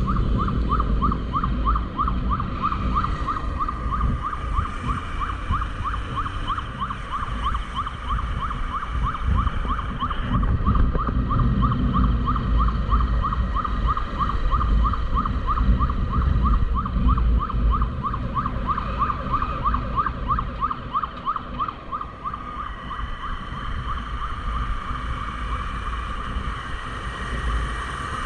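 Electronic siren yelping, a rapid repeating rise in pitch about three times a second that runs without a break, heard from a moving motorcycle over steady engine and wind rumble.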